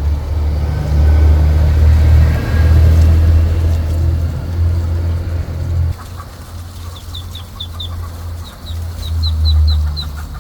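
Duckling peeping in short, high, falling chirps, several a second, starting about seven seconds in. A loud low rumble underlies it and is loudest in the first half.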